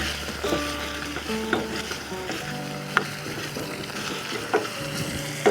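Spring onion, garlic-ginger paste and spices sizzling in oil in a pan, with a spoon knocking and scraping against the pan about five times. Soft background music with held notes runs underneath.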